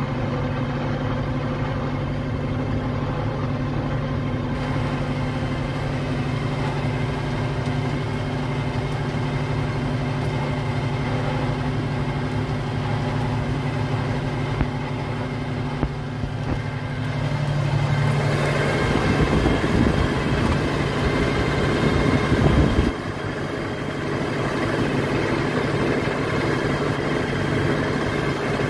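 Tractor's diesel engine running steadily, heard from inside the cab while it pulls a row-crop hoe cultivator through the field. About two-thirds of the way through, a louder, rougher rushing noise rises for some five seconds and then cuts off suddenly.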